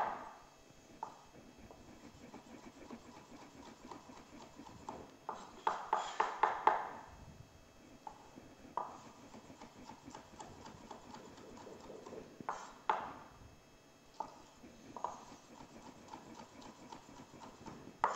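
Chef's knife chopping cooked shrimp on a wooden cutting board: a run of short knocks of the blade on the wood, with louder spells of quick chopping about six seconds in and again around thirteen seconds.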